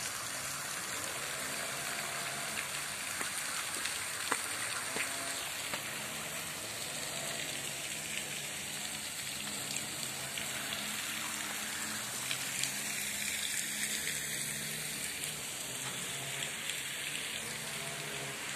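Tiered garden fountain's water falling and splashing into its pool, a steady, even hiss.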